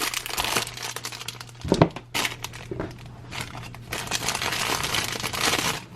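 Packaging crinkling and rustling in bursts as it is handled and opened, with a short knock a little under two seconds in.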